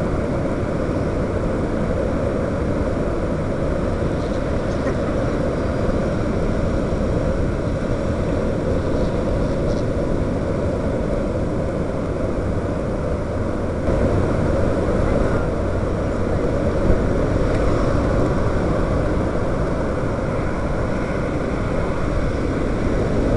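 Steady rushing drone of a quadcopter's rotors and motors, mixed with wind on the microphone of its onboard camera. It gets a little louder about fourteen seconds in.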